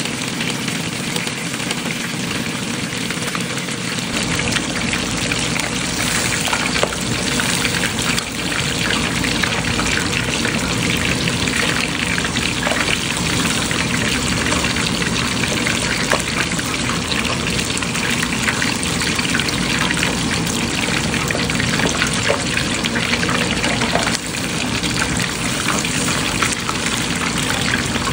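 Hot oil sizzling and crackling steadily around a whole snapper deep-frying in a pan.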